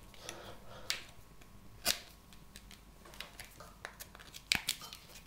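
Tough thermoformed plastic grinding tray being pried and worked off a dental model: scattered sharp clicks and snaps with small ticks between, the loudest about two seconds in.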